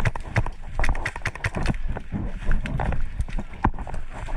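Quick, irregular footsteps of a person moving at a fast pace, with gear knocking and rattling.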